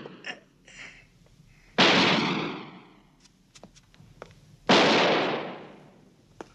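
Two pistol shots about three seconds apart, each with a long echoing tail that dies away slowly.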